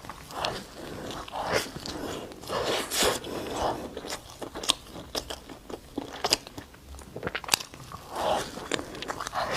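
A person biting and chewing food, with many irregular sharp crackles between softer, wetter mouth sounds.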